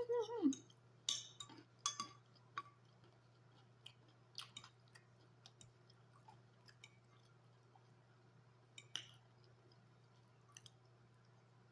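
A person chewing food close to the microphone: scattered short wet mouth clicks and smacks, thickest in the first few seconds and again around the middle, with quieter stretches between.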